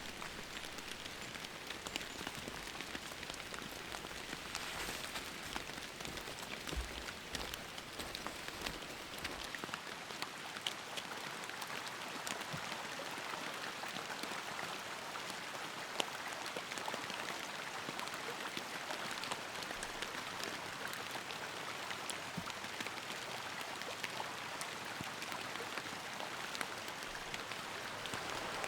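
Steady rain falling, with many separate drops hitting sharply through the even hiss.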